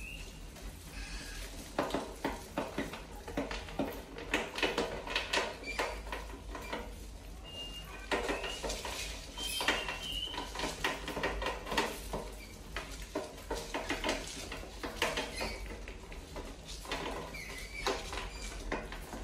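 Mice scrambling in a wire-mesh cage inside a plastic water-bottle trap: irregular, rapid scratching and metallic rattling of claws on the wire and plastic, getting busier about two seconds in, with a few short high squeaks.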